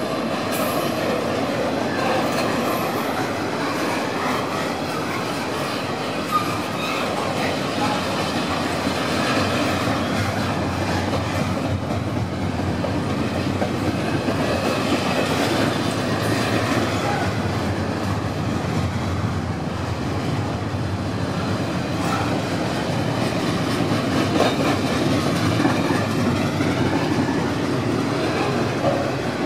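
Double-stack intermodal freight train of container well cars rolling past slowly: a steady rumble and clatter of steel wheels on the rails, with no locomotive engine in the foreground.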